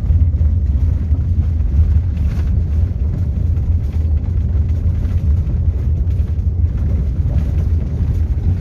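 Car driving on a gravel road, heard from inside the cabin: a steady low rumble of engine and tyres with faint scattered crackle from the gravel.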